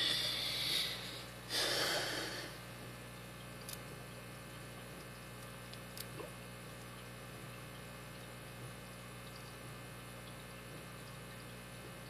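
Two loud exhales close by in the first two seconds, then a steady low hum with a few faint clicks of a lock pick working the spool security pins of a brass Master Lock 60 mm V-line padlock under tension.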